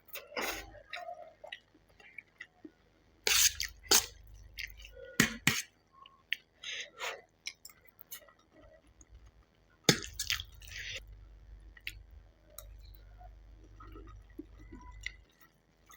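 Close-miked eating of Maggi instant noodles: wet mouth smacks and chewing in short separate bursts, with sharp clicks, the loudest a few seconds in and again about ten seconds in.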